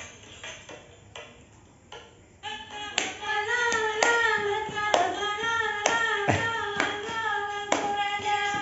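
High voice singing a Javanese tembang in long, wavering held notes, over sharp knocks about once a second; it sets in about two and a half seconds in, after a quieter stretch of scattered taps.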